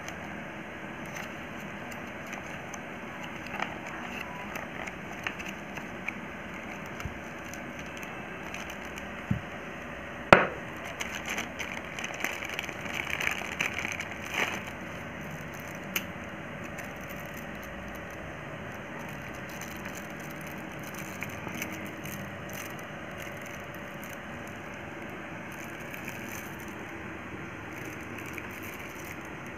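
Clear plastic packaging bag and bubble wrap crinkling and rustling as they are handled, with scattered small clicks and one sharp click about a third of the way in, the loudest sound, over steady background noise.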